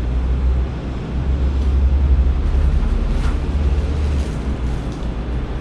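A steady low rumble, with a few faint handling rustles around the middle.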